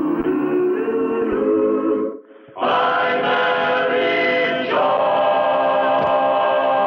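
Closing theme music sung by a choir with orchestra; it breaks off about two seconds in, then comes back fuller and settles into a long held final chord.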